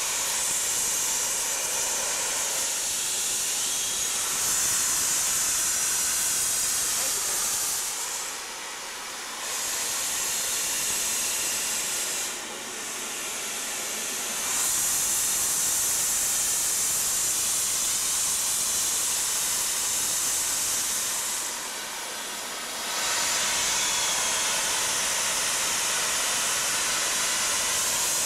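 Indian metre-gauge steam locomotive hissing steadily as steam escapes around its cylinders. The hiss drops back briefly three times, about 8, 12 and 22 seconds in.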